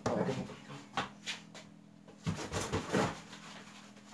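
Rustling and a few brief bumps of a person moving about quickly in a small room, over a faint steady hum.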